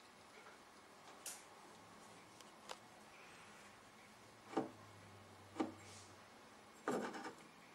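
Handling of a small glass bottle on a wooden table: faint scattered clicks, then two sharp knocks about a second apart as a hand takes hold of it, and a short clatter near the end as it is lifted, over faint room hiss.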